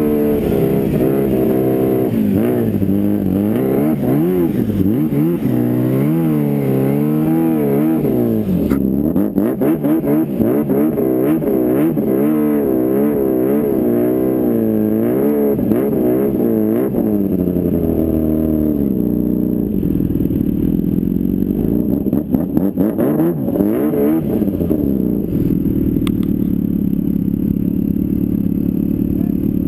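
Snowmobile engine running as the sled is ridden, its pitch rising and falling again and again with the throttle, with clattering through the middle. After about 18 seconds it settles to a lower, steady note as the sled slows.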